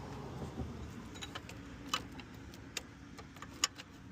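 A few scattered metallic clicks and taps as the large alternator mounting bolt is fitted into place by hand. The sharpest click comes about three and a half seconds in.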